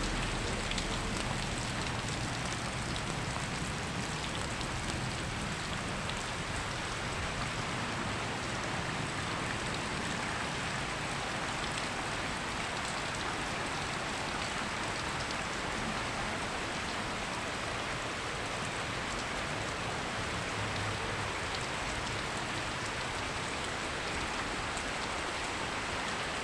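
Steady rain falling on surfaces, an even wash of noise that keeps the same level throughout.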